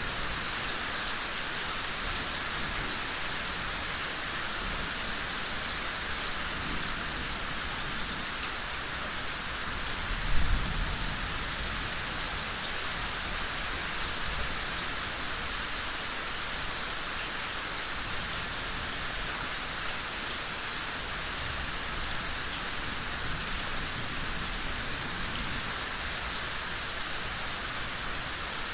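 Steady rain falling, a dense even patter. About ten seconds in comes a brief low rumble of distant thunder.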